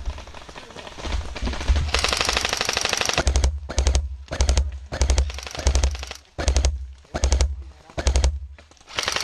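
Airsoft gun firing on full auto: a long burst about two seconds in, then a run of short bursts about twice a second, then another long burst near the end.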